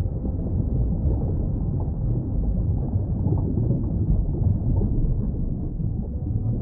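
Underwater ambience: a steady, low rumbling noise with no distinct events.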